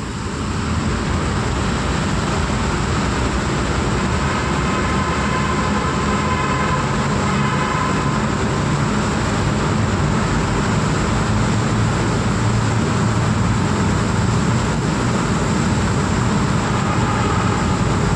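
Steady road noise heard from inside a moving car in a road tunnel: tyre and engine rumble mixed with the traffic around it. It grows louder about a second in, then holds as a dense, even rumble.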